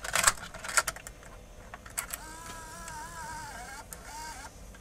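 Sony HDR-FX7 camcorder's MiniDV tape mechanism: sharp clicks as the cassette is pushed in and the compartment shut, then the loading motor whirs with a wavering whine for about two seconds as it draws the tape in. The owner finds the mechanism sounds labored when retracting the tape.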